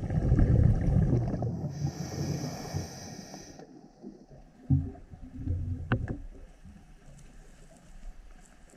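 Scuba diver breathing on a regulator underwater: a loud rumble of exhaled bubbles, overlapped by a steady hiss of inhalation through the regulator that cuts off sharply. A couple of short knocks follow.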